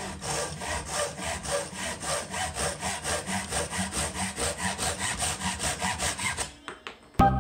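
Gyokucho Japanese pull saw blade cutting through a block of wood by hand in quick, even strokes, about four a second. The sawing stops about six and a half seconds in, and music starts just before the end.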